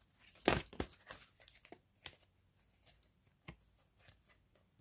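Oracle cards being shuffled and handled: a quick flurry of card flicks and rustles in the first second, the loudest about half a second in, then a few scattered single snaps.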